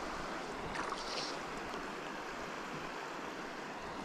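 Steady, even flowing of river water, with a short faint high-pitched sound about a second in.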